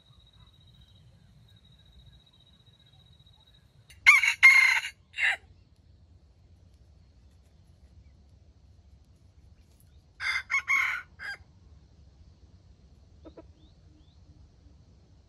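Red junglefowl rooster crowing twice, about six seconds apart: each crow is short and clipped, broken into three parts. A faint steady high whine is heard in the first few seconds.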